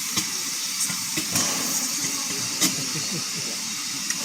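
Steam locomotive Eddystone hissing steadily as it stands with steam up, with a few sharp clicks, the loudest about two and a half seconds in.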